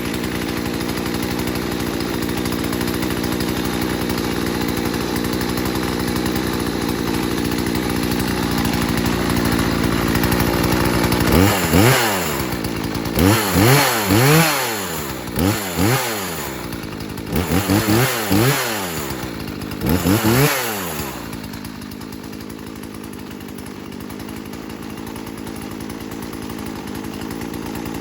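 Husqvarna 240 two-stroke chainsaw idling steadily, then revved up about five times, each rev rising and falling back to idle, before settling into a steady idle again.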